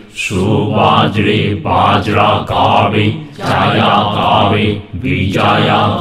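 A low male voice chanting a healing mantra in long drawn-out phrases, with short breaks for breath about every one and a half seconds.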